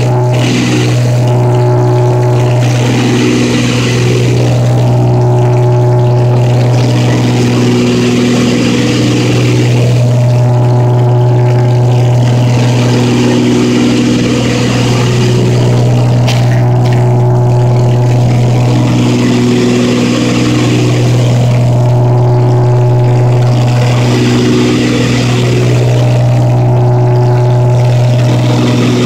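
Twin piston engines and propellers of a small commuter plane in flight. They run at a steady, loud drone with a deep hum, and the tone swells and fades slowly every few seconds as the two engines beat against each other.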